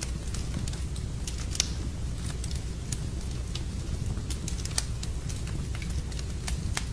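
Wood fire burning in a fireplace, crackling: sharp irregular pops and snaps scattered over a steady low rumble.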